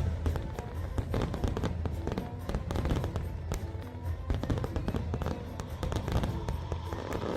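Fireworks bursting and crackling in rapid, irregular succession, mixed with music that has a strong steady bass.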